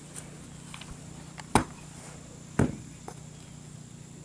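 Two sharp knocks about a second apart, with a few lighter clicks, over a faint steady hum.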